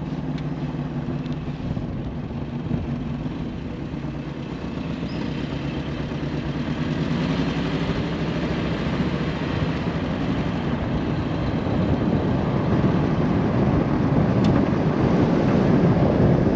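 1965 Bentley S3 being driven: its V8 engine running steadily under road and wind noise, which grows louder through the second half.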